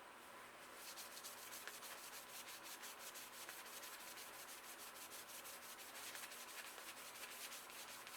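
Faint, quick back-and-forth rubbing of a rag buffing polish into the painted frame of a BMX bike, starting about a second in.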